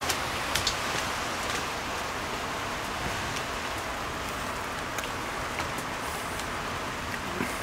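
Steady rain falling, with a few sharper drips ticking through it.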